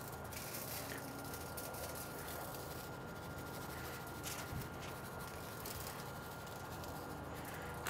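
Quiet steady background hum with a thin high tone, and faint soft rustling and small ticks from handling.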